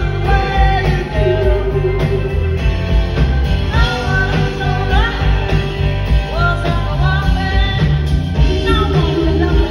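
A live band playing a rock-and-roll tune in a theatre, heard from the audience: a steady drum and bass beat under electric guitar, with a woman singing lead.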